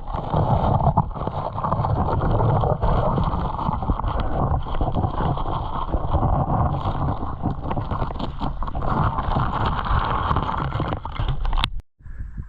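Creek water sloshing and churning close to the microphone as someone wades and stirs it up, with scattered knocks and a heavy rumble. It cuts off suddenly near the end.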